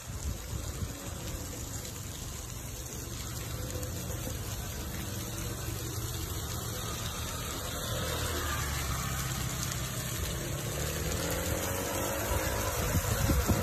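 Water gushing and spraying out of a pipe burst under the street pavement in an earthquake: a steady rushing hiss over a low rumble, growing a little louder toward the end.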